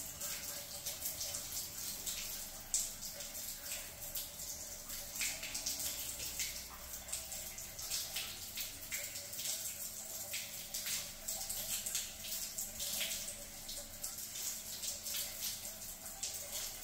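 Water gushing from an open galvanised-iron pipe outlet and splashing onto a tiled floor: a steady spatter with many small irregular splashes. The pipe is being flushed after an acid cleaning, and the stream carries dissolved rust and dirt out of the line.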